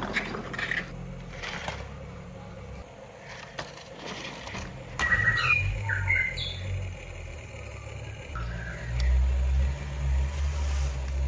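Remote-control hydraulic excavator working: its hydraulic pump motor runs with a low, uneven hum that swells louder near the end, and short scraping sounds of digging come near the start.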